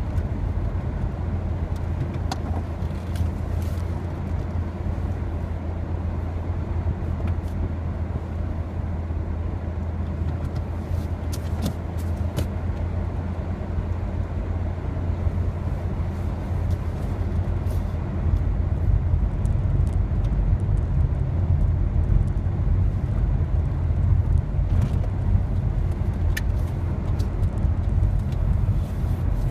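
A car's engine and road noise heard from inside the cabin while driving: a steady low rumble that grows louder about two-thirds of the way through, with a few light clicks.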